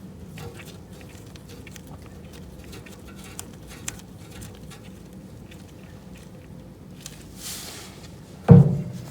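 Metal steering linkage parts, tie rod ends and drag link, being handled: scattered light clicks and taps, a short hiss about seven seconds in, then a loud thump just before the end.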